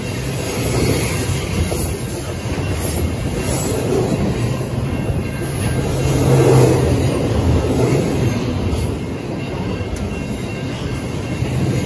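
Freight train wagons rolling past at close range: a steady rumble of steel wheels on the rails that swells and eases every couple of seconds as the bogies go by.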